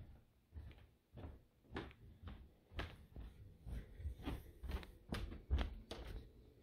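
Footsteps going down carpeted wooden stairs and onto a carpeted floor: a steady run of dull thuds, about two a second.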